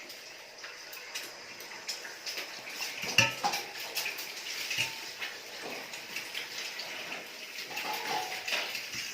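Eating sounds from a bowl of soupy spicy instant noodles: cutlery clinks against the dish amid wet slurping, with the sharpest clink about three seconds in.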